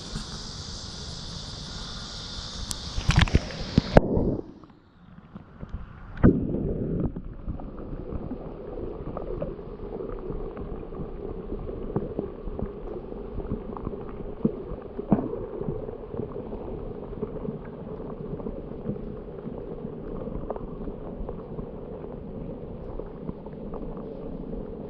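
A handheld GoPro dipped into pond water: a few splashes about three to four seconds in, then the sound turns dull and muffled as the camera goes under. What remains is a steady low underwater hum with scattered faint clicks.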